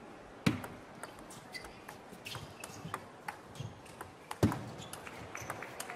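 Table tennis ball clicking sharply off paddles and the table during a serve and rally, with two louder knocks, about half a second in and near the end.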